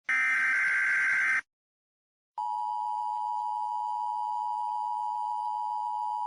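Emergency Alert System header data burst lasting about a second and a half. After about a second of silence comes the steady EAS attention tone near 1 kHz, starting about two and a half seconds in and holding without a break. Together they herald a new emergency alert.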